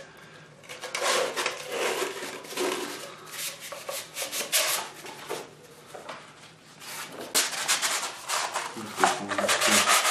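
Hand plane's cast iron sole rubbed back and forth on 400-grit silicon carbide wet-and-dry sandpaper glued to glass and lubricated with WD-40, in repeated scraping strokes: lapping the sole flat. The strokes fade for a moment around the middle, then pick up again.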